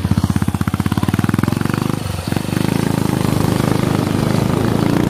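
Motorcycle engine running under way, with fast, even pulsing. The sound drops briefly about two seconds in, then picks up again.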